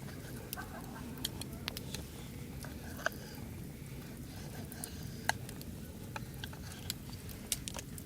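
Wood campfire crackling: irregular sharp pops and ticks over a steady low rush, with the sharpest pops about three and five seconds in.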